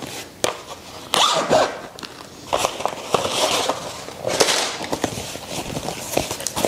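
Plastic packaging rustling and crinkling in irregular bursts, with small clicks and knocks, as a leather knee boot is lifted out of its wrapping and handled.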